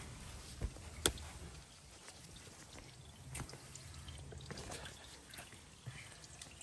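Engine oil trickling and dripping from a 2005 Hyundai Elantra's oil pan drain hole into a drain pan, the drain nearly finished. A sharp click about a second in.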